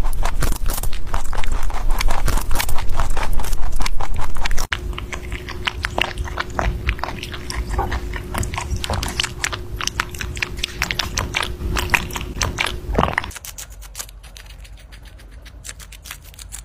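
Rabbits eating: rapid, crisp chewing and nibbling clicks, loud for the first few seconds and softer after about five seconds in, when a faint steady hum runs beneath them. It goes quieter near the end.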